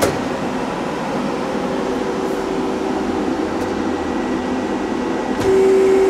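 Femco HL25N CNC lathe's hydraulic tailstock being brought forward: a steady machine hum with a click at the start and a faint whine, then a louder steady whine about five and a half seconds in.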